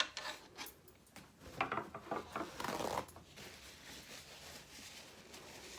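Close-miked eating sounds: biting into and chewing a Wendy's Baconator. A cluster of small wet clicks and crackles over the first three seconds, then quieter chewing.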